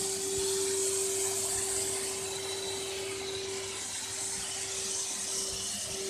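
Self-service car wash machine running, a steady motor hum with an even hiss over it.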